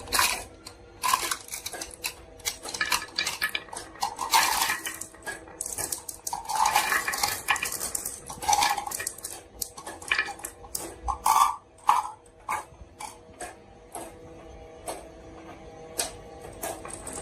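Marbles rolling down a marble run, clacking against the track and each other in many quick clicks and short bursts of rattling.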